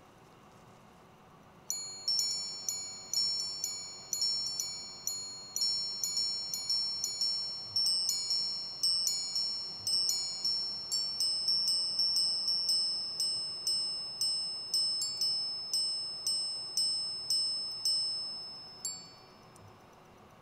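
Chopard L.U.C Full Strike minute repeater chiming on its monobloc sapphire gongs: a long run of quick, clear, ringing strikes on two high notes. The lower note comes first, then the two alternate, then the higher note, as the repeater strikes the hours, quarters and minutes.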